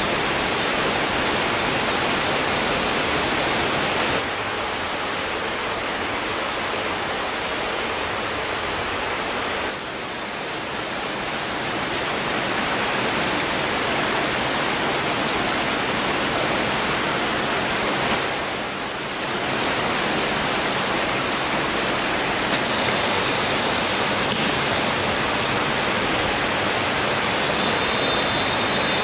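Steady rush of flowing water from a rocky forest stream and waterfall, dipping slightly in level a few times. A faint high steady tone joins in near the end.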